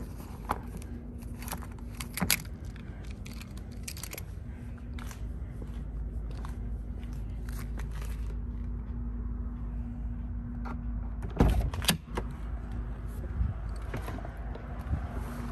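Keys and a key fob jangling on their ring as they are handled, with a few light clicks. About eleven and a half seconds in come two sharp clacks close together: the car door latching open and the door being pulled, with the fob now out of the Faraday pouch so keyless entry works.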